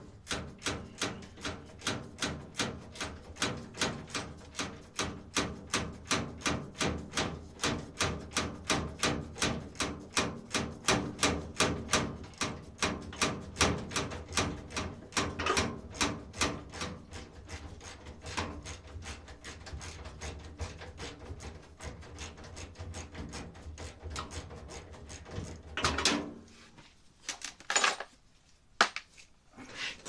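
A ratcheting hand tool clicking steadily, about two or three clicks a second, as screws are backed out of sheet metal. Past the middle the clicking slows and turns irregular, and a few knocks of handling come near the end.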